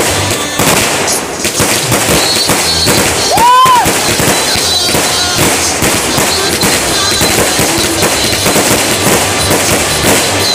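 Aerial fireworks bursting in quick succession, a dense, continuous crackle of bangs. A short whistle rises and falls about three and a half seconds in.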